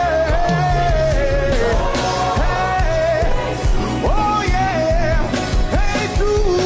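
Live gospel worship music: a lead voice sings long, sliding melodic runs without clear words over a band accompaniment with a steady beat.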